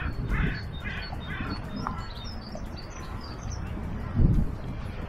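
A duck quacking about four times in the first second and a half, then small birds chirping high and thin. A single low thump about four seconds in.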